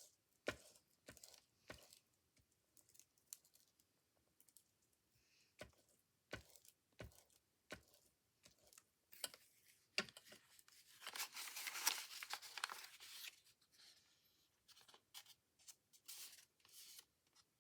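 Faint paper-crafting sounds: scattered light taps and clicks of paper and supplies being handled, with a few seconds of scratchy rubbing on paper about eleven seconds in.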